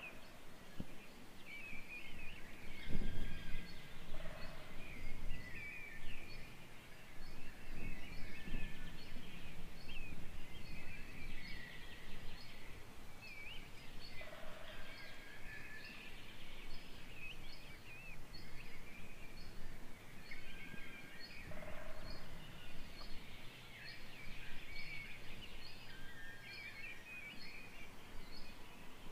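Forest birds in chorus: several songbirds singing and chirping over one another. One high note repeats about once a second, and a short low call comes every several seconds. A brief low rumble sounds about three seconds in.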